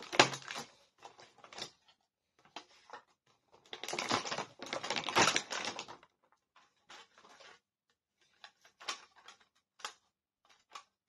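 Hard plastic toy playset pieces being handled and fitted together: scattered clicks and rattles, with a longer stretch of dense rattling and crackling from about four to six seconds in.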